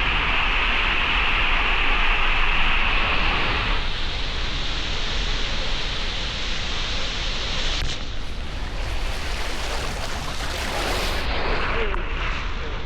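Rushing water and wind noise on a body-mounted action camera as a rider slides down a waterslide. The steady rush changes character about four seconds in and again near eight seconds.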